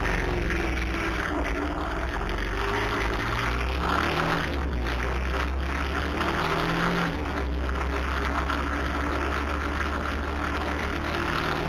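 Motorcycle engine pulling away and accelerating along the road, its pitch rising and falling as it goes, with steady wind noise rushing over the bike-mounted camera's microphone.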